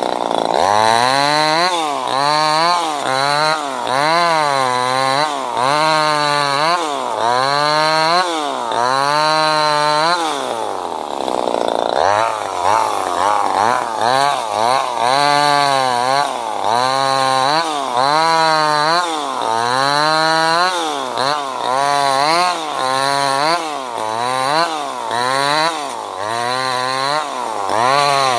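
Wudee 25cc two-stroke top-handle chainsaw engine revved up and down in quick repeated bursts, about one a second, dropping back toward idle once for a longer spell about ten seconds in.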